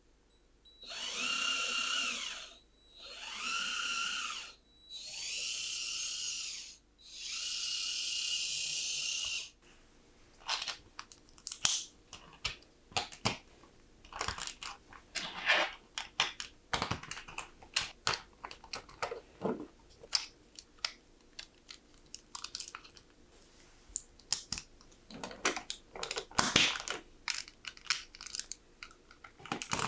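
Small electric motor of a LEGO train drive running in four bursts of about two seconds each, a steady whine. After that, LEGO plastic parts click and rattle as they are handled.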